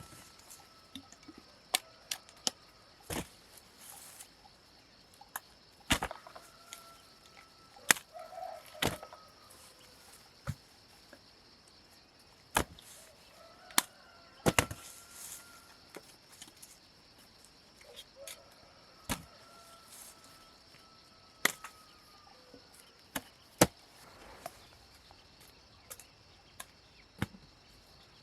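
Chickens clucking, with short calls scattered through, against a steady high-pitched drone. Sharp irregular knocks, like blade chops, come every second or two and are the loudest sounds.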